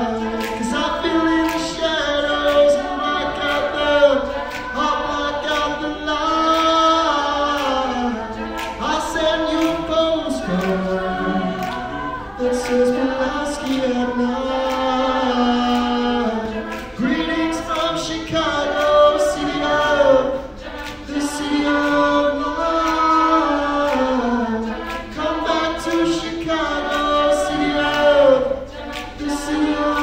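Mixed-voice a cappella group of men and women singing in close harmony, several voice parts moving together, with a steady beat of short sharp clicks through it.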